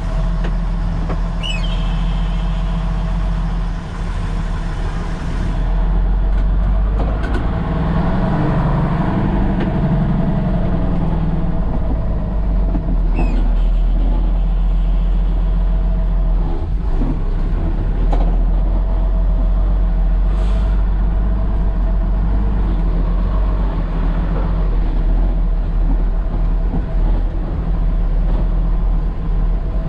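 Diesel engine of a Nissan CK 31 L concrete pump truck running as the truck drives. It is a steady low drone that grows stronger for a few seconds about eight to eleven seconds in, with a couple of brief high squeaks.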